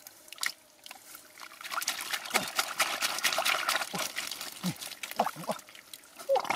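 Muddy water trickling and splashing as hands scoop wet mud into a woven basket and lift it. The sound swells a second or so in into a busy wet wash of small splashes and drips, with a few short wet squelches from the mud.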